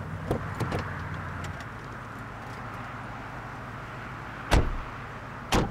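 Car doors shut twice, about a second apart, after some light clicks and rustling at the start, over the steady background noise of the car.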